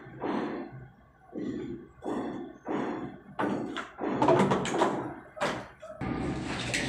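A series of dull knocks and thuds, about seven separate hits in a few seconds, the loudest a little past the middle.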